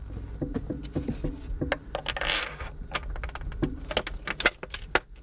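Solar modules being handled and turned on their metal mounting rack: a run of irregular clicks and knocks from the panel frames, with a short scrape about two seconds in.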